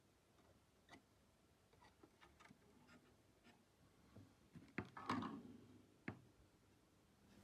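Faint scattered clicks and light knocks from handling an amplifier's metal chassis, with a short louder clatter about five seconds in and one more sharp click a second later.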